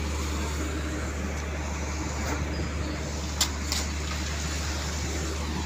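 Steady low rumble of a heavy diesel vehicle engine running, such as a concrete mixer truck at a concrete pour, with a few faint short clicks around the middle.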